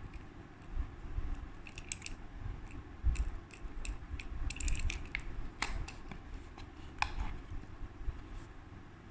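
A run of light clicks, taps and short scrapes as small products and their packaging are handled and unpacked, over a steady low rumble. The clicks are thickest in the middle and stop well before the end.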